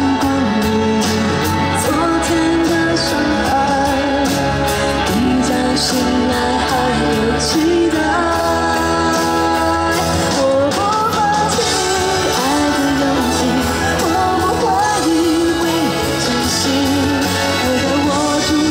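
Pop-rock song performed live: a singer's melody over a band, with drums and cymbals keeping a steady beat.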